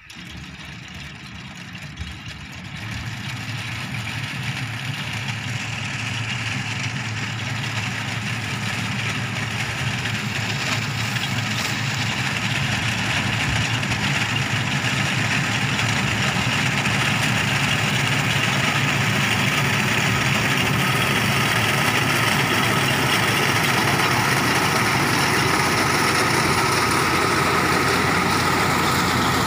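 Diesel tractor engine running steadily under load as its front-mounted reaper cuts standing sorghum stalks. It grows steadily louder over the first half as the tractor comes closer, then holds at a steady level.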